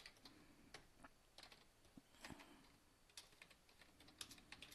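Faint computer keyboard typing: irregular single keystrokes with short pauses between them.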